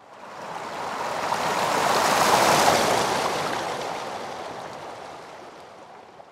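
A single long swell of rushing noise, a wave-like sound effect. It builds for about two and a half seconds, then fades out slowly.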